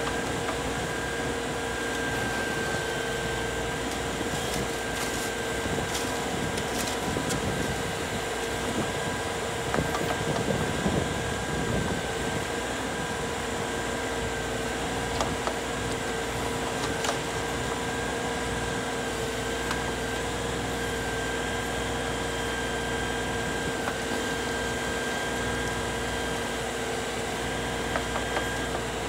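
LS compact tractor's diesel engine running steadily while its backhoe digs a trench in rocky soil, with a short burst of scraping and clatter about ten seconds in.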